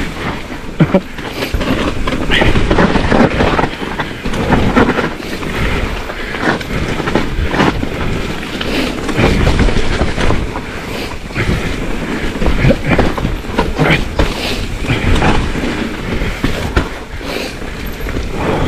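Mountain bike ridden fast down a rough, shaley trail: tyres crunching and rolling over loose stones, with the bike rattling and knocking repeatedly throughout.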